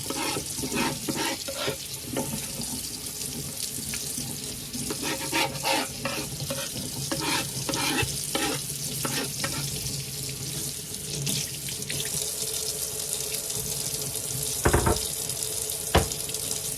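Kitchen tap running into a sink while a pot is washed, with frequent short knocks and clatter of the pot, and two louder knocks near the end.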